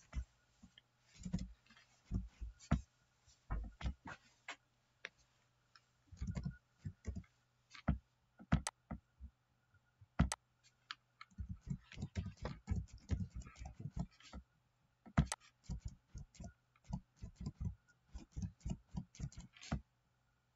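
Computer keyboard typing: irregular keystroke clicks in short runs, sparse at first and much denser from about halfway through, over a faint steady low hum.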